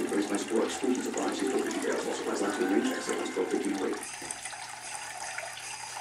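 Water trickling from the pitcher spout of a tabletop decorative fountain and splashing into the basin below, a steady even splash.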